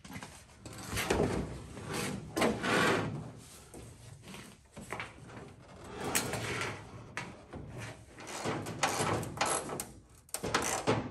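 Scuffing, sliding and knocking of a fiberglass car hood being handled by hand and propped open with a wooden stick. A run of short, uneven scrapes and knocks with no steady sound.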